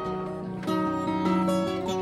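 Background music played on a plucked string instrument, with a new plucked note or chord about two-thirds of a second in.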